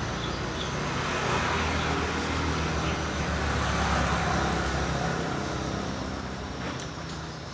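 Road traffic: a motor vehicle passing, its noise swelling to a peak about four seconds in and then fading.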